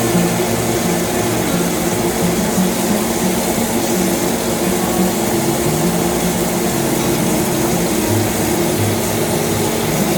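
A steady, loud rushing noise, like a running kitchen fan or burner, over background music with a slowly moving low bass line.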